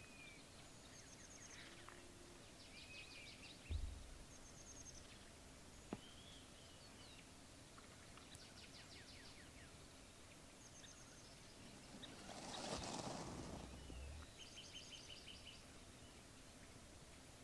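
Quiet outdoor ambience with faint distant songbirds: short repeated trills and slurred whistles, scattered through. A low thump comes about four seconds in, and a soft rushing sound swells and fades about twelve seconds in.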